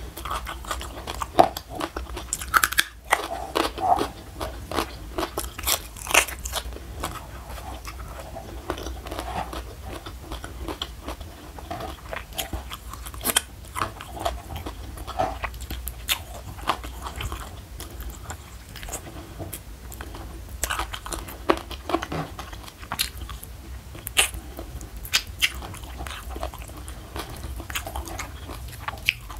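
Close-miked eating sounds: biting and chewing on chicken feet, with irregular crunches and wet mouth clicks, over a steady low hum.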